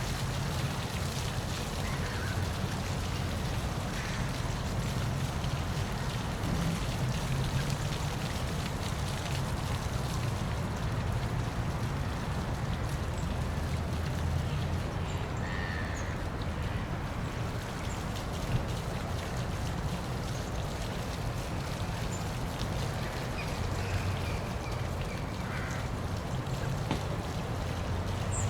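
Steady rush of water falling in a park waterfall, a continuous even splash with a low rumble beneath it.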